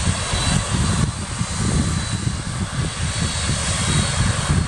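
Jet engines of a FedEx twin-engine jet freighter taxiing, a steady rush of turbine noise with a fluctuating low rumble.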